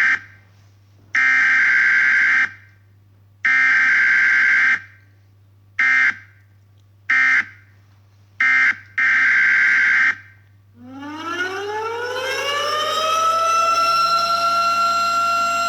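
A run of loud electronic alarm beeps on one steady pitch: three about a second long, three short, then one more long. About 11 s in, an outdoor tornado warning siren winds up from a low pitch, rising over two to three seconds to a steady wail that holds.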